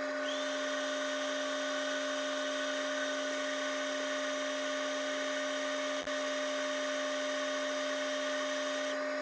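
LaserPecker 4 laser engraver with its rotary extension running an engraving job: a steady, drill-like machine whine over a hum. The highest part of the whine drops out near the end.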